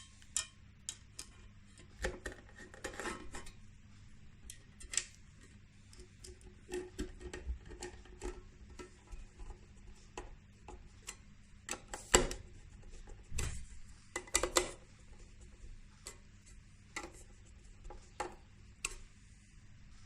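Small screws, a screwdriver and a metal mounting plate being handled as M3 screws are driven through the plate and rubber feet: scattered metallic clicks, clinks and light knocks, with busier clatters about twelve and fourteen seconds in.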